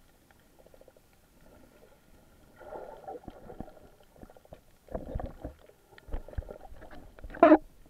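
Muffled water movement heard through a camera held underwater, in irregular rushes with soft knocks. A short, much louder burst comes just before the end.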